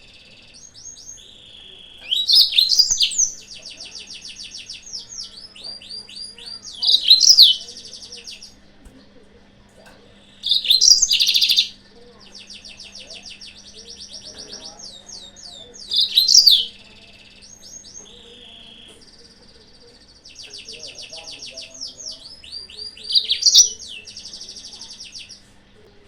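Yellow-fronted canary (Mozambique canary) song used as a trapping lure: a continuous stream of high twitters and short phrases, broken by louder rapid trills about every four to five seconds.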